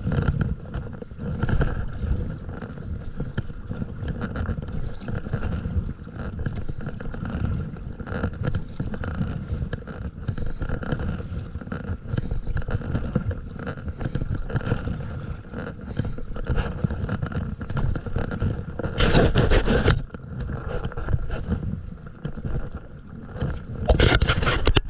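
A stand-up paddleboard being paddled: water sloshing at the board's nose and paddle strokes in the water, under a rough rumble of wind on the camera microphone. Two louder, brief rushes of noise break in, one about three-quarters of the way through and one near the end.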